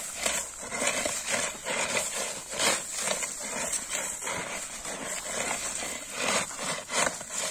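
Homemade flat steel weeding blade on a wooden handle scraping back and forth through dry soil, cutting weeds: quick repeated rough scraping strokes.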